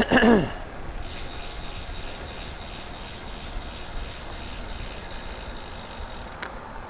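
Bicycle freehub ticking steadily as the rider coasts, over a steady hiss. Right at the start there is a short squeak that falls in pitch.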